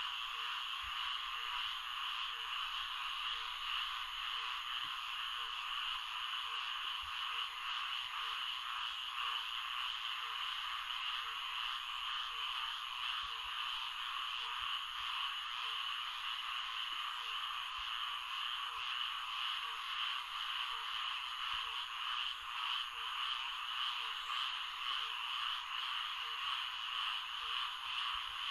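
Florida swamp chorus of frogs calling: a dense, steady mass of high calls, with a short lower call repeating at an even pace beneath it.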